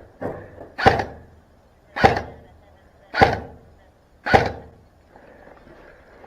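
Airsoft gun fired four single shots about a second apart, each a sharp crack with a short tail, after a fainter knock.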